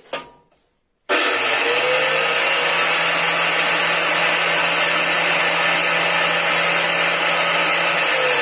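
Angle grinder rebuilt as a sugar-powder mill, its improvised metal blade spinning empty inside an enamel pot on a trial run. It switches on abruptly about a second in, spins up, and runs steadily at full speed, its pitch dipping slightly near the end.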